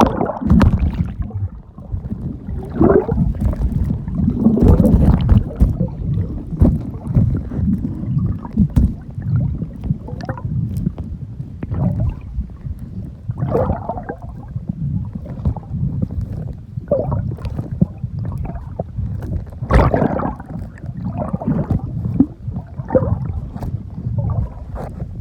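Muffled, irregular sloshing and gurgling of seawater against a phone's microphone while swimming, with uneven surges and crackles.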